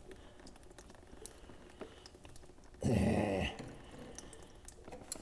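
Water trickling and dripping from the open drain cock by the water pump of a 1901 Curved Dash Oldsmobile's cooling system, with small clicks of handling and a brief louder sound lasting about half a second, about three seconds in.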